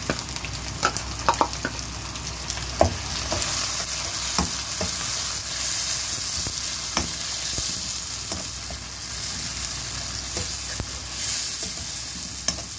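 Tomato purée sizzling and spitting as it hits hot oil and fried onions in a pan, stirred with a slotted metal spoon that clicks and scrapes against the pan. The sizzle grows fuller after a few seconds, while the spoon's clicks come most often in the first few seconds.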